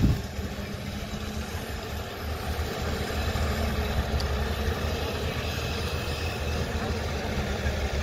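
Caterpillar hydraulic excavator's diesel engine running steadily as the machine swings and works its arm, with a short knock right at the start.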